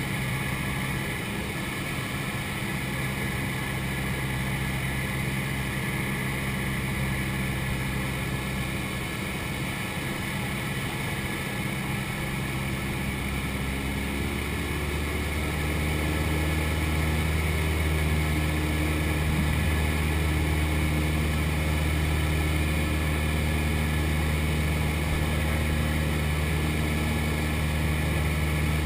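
Cessna 172's engine and propeller droning steadily, heard inside the cabin. About halfway through, the drone shifts to a lower, slightly louder tone.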